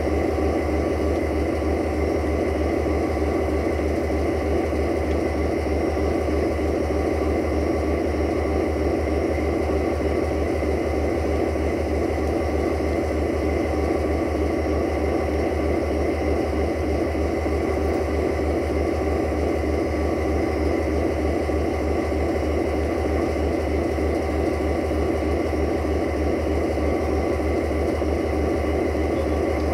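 Siemens Desiro (VT642) diesel multiple unit idling: a steady diesel engine sound with a fast, even low throb that holds unchanged throughout.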